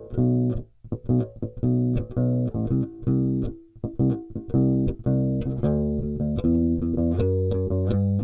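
Warwick Rockbass Streamer Standard four-string electric bass played fingerstyle on its bridge pickup alone: a run of plucked notes, with short breaks about a second in and again near the middle.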